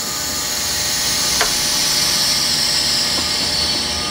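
Air hissing into a 0.9 cubic foot vacuum oven through its valve as the shipping vacuum is released: a loud, steady rush of air that eases slightly near the end.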